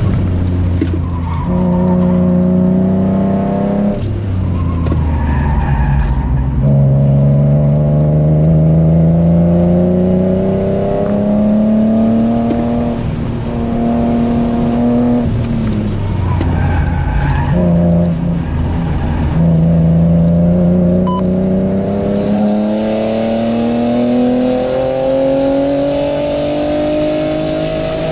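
BMW E36 M3's straight-six engine under hard track driving, heard from inside the cabin. Its pitch climbs in several long pulls, each cut off by an upshift or a lift for braking, and the last pull builds steadily over the final eight seconds.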